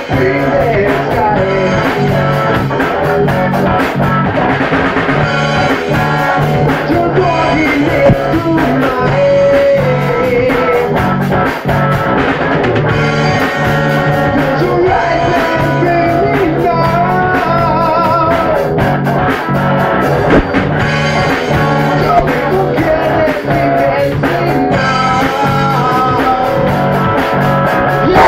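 Rock band playing live: electric guitars and a drum kit keep a steady beat under a wavering lead melody line.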